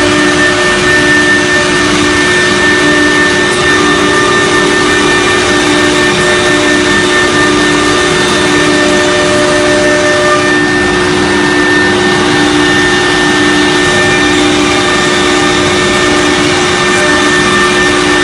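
CNC router's 6 kW HSD spindle running, a loud steady whine with steady tones over machining noise that holds even throughout.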